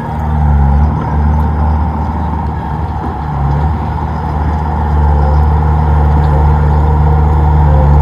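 Komatsu D31P bulldozer's diesel engine running under load, a steady low drone that eases off a little around the first few seconds, then grows louder and steadier from about five seconds in.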